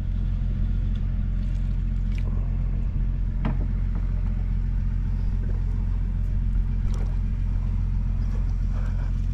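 A boat engine running steadily with a low, even rumble, with a couple of faint clicks about three and a half and seven seconds in.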